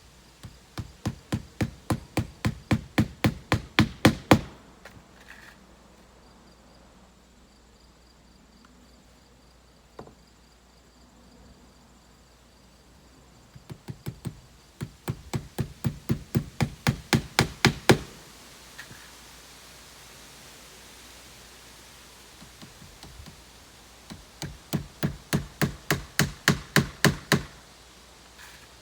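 Hammer driving roofing nails into shingles: three runs of quick strikes, about five a second, each run growing louder and ending on a hard final blow.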